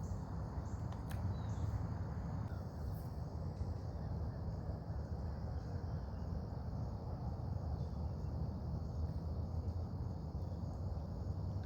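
Steady, high-pitched insect chorus, crickets or similar, with a constant low rumble underneath.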